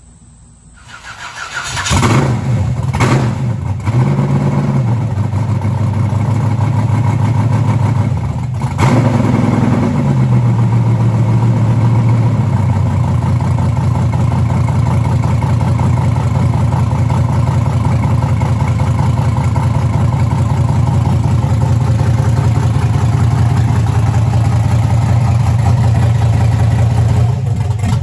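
A 383 cubic inch stroker LS V8 (a 5.3 bored and stroked, with a Junkyard Dog nitrous cam) cranking and firing up about a second in. It is revved briefly a couple of times, then settles into a steady idle.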